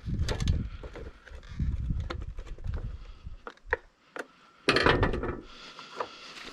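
Irregular knocks, clunks and handling noise from tools and metal parts being moved about on a work surface, with a louder clatter about five seconds in.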